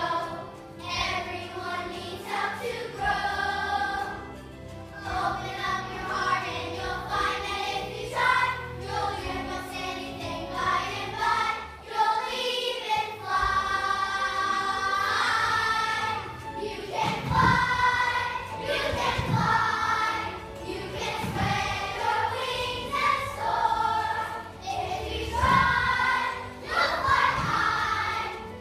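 A large group of children singing a song together as a choir, with musical accompaniment.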